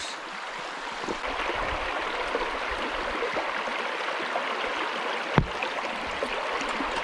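Shallow rocky stream running over stones: a steady rush of water. A single sharp knock comes about five and a half seconds in.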